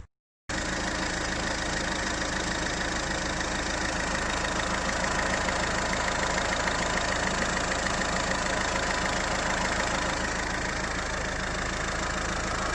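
1.6 HDi four-cylinder common-rail diesel engine idling steadily with its diesel clatter, running after its leaking injector sealing washer has been replaced.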